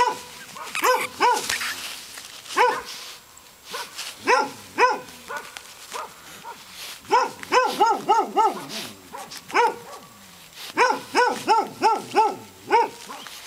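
A dog barking repeatedly: scattered single barks, then quick runs of several barks in a row about seven seconds in and again near the end.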